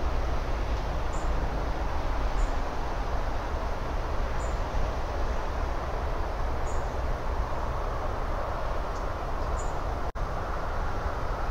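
Steady outdoor ambient noise, a low rumble with a hiss over it, picked up by a wildlife webcam microphone. Faint short high chirps sound every second or two, and the sound drops out for an instant about ten seconds in.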